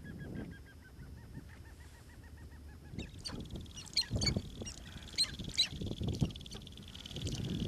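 Sharp-tailed grouse calling: a quick, evenly repeated run of clucking notes, then sharper, louder cackles from about three seconds in.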